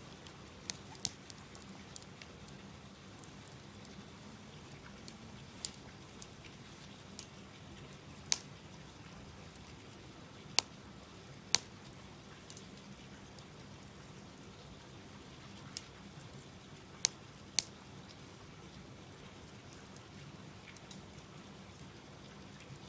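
Small wood fire burning in a compact wood stove, crackling with scattered, irregular sharp pops over a low steady hiss; a few pops stand out much louder than the rest.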